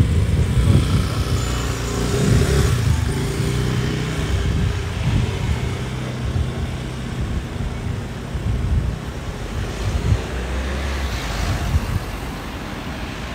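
City street traffic: car and bus engines running and passing close by, a steady low rumble with engine hum rising and falling.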